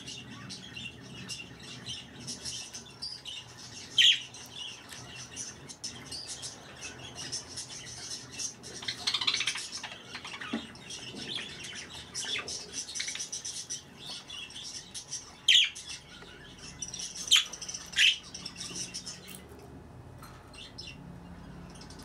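Pet budgerigars chattering and warbling with a continuous fast twitter and clicks. The chatter is broken by a loud sharp call about four seconds in and three more in quick succession later on. It thins out near the end.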